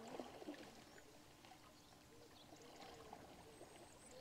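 Near silence: faint outdoor estuary ambience, with faint distant voices briefly at the start and again near the end.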